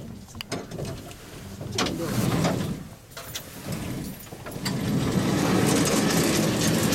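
Aerial tramway cabin in motion on its cables: a rushing, rumbling running noise that swells about two seconds in, eases, then rises again and holds from about five seconds in.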